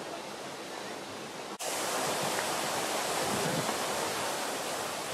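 Fountain jets splashing: a steady rush of falling water that breaks off for an instant about a second and a half in and comes back a little louder.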